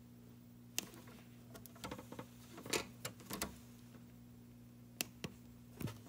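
Wire strippers clicking and snapping as they strip insulation off the ends of 18-gauge fire alarm wire conductors: a scattered run of sharp, irregular clicks, with a steady low electrical hum underneath.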